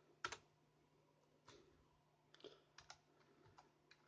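Faint, scattered computer keyboard key presses: one sharp click near the start, then several softer, unevenly spaced taps.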